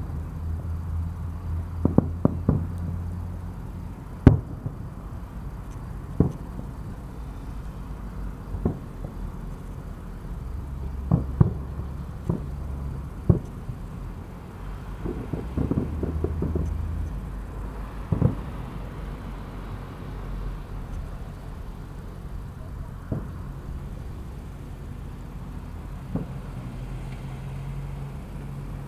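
Fireworks display: aerial shells bursting and cracking at irregular intervals, about twenty sharp bangs with a quick cluster near the middle, over a steady low rumble.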